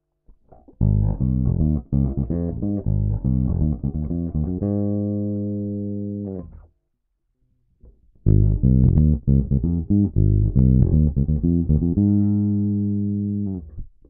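Yamaha RBX270J four-string electric bass played fingerstyle. A quick run of plucked notes ends on a long held note that is cut off. After a pause of about a second and a half, a second similar phrase follows and also ends on a held note that is damped near the end.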